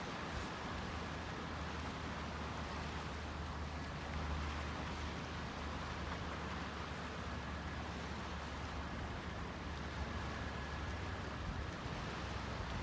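Wind blowing across the microphone and lake water washing, a steady noisy hiss over a low rumble.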